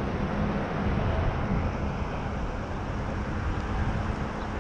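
Wind buffeting the microphone: a steady low rumble with hiss over it.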